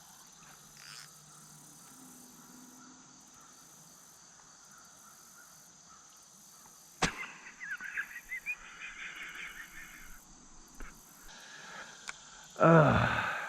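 Steady high chirring of crickets or other insects. About seven seconds in comes a sharp click, followed by a few seconds of quick high chirps. Near the end there is a loud call about a second long.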